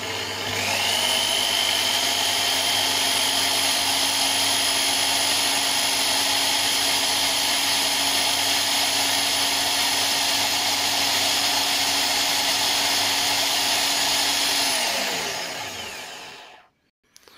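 Electric drill spinning a circular saw's armature as a makeshift lathe while a file is held against the copper commutator, dressing its worn, pitted surface. The drill speeds up with a rising whine about half a second in, runs steady, then winds down with a falling whine near the end.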